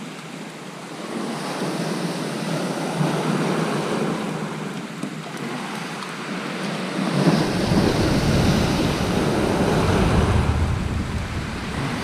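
Waves breaking and washing on a shingle beach, a steady rushing noise that swells over the first few seconds; from about halfway through, wind buffets the microphone with a low rumble.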